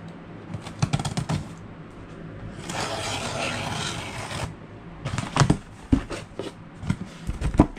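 Hands unsealing a cardboard shipping box: fingernail scratching and clicking at the end of the packing tape, and a rasping peel of tape off the cardboard that lasts about two seconds, starting about three seconds in, then more cardboard handling clicks and knocks.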